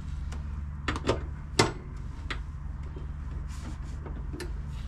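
Pliers and a screwdriver bit clinking and knocking against the steel seat base while working at a tight special-head seat bolt: about six sharp metallic clicks, the loudest about a second and a half in, over a steady low hum.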